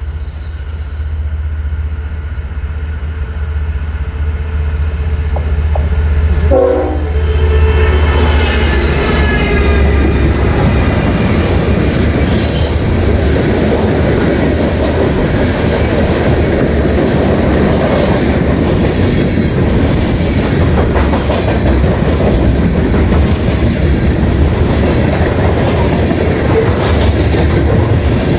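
Norfolk Southern freight train led by GE diesel locomotives approaching and passing, its low engine rumble growing louder, with a brief horn note about six and a half seconds in. Then comes the steady rolling noise and wheel clatter of loaded hopper cars going by.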